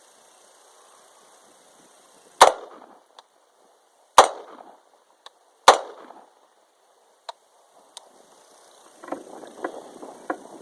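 Three unsuppressed shots from an AR-15-type rifle in 5.56 mm, each a sharp crack with a short echo, spaced about one and a half to two seconds apart. Faint clattering follows near the end.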